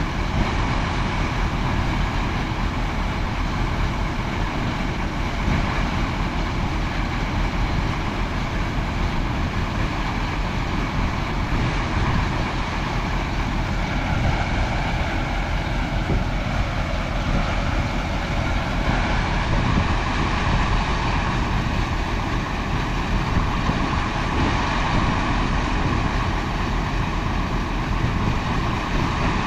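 Heavy farm machinery running in the corn harvest: a steady, loud engine and machinery drone with a constant low rumble.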